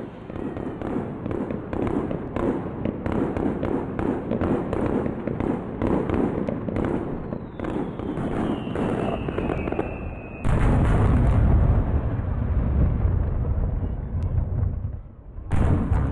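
Fireworks display: a dense run of crackling pops, a whistle falling in pitch, then a loud deep boom about ten seconds in and another near the end.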